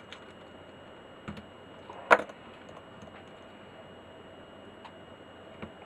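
A few faint clicks and taps from handling small parts on a workbench, with one sharp click about two seconds in, over a faint steady hiss.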